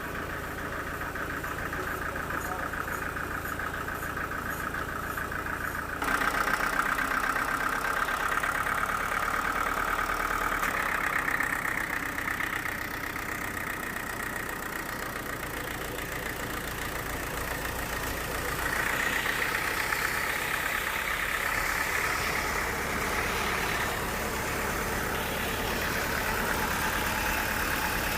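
Sawmill machinery running steadily, a motor drone with a whine, its pitch and loudness changing abruptly about six seconds in and again twice later.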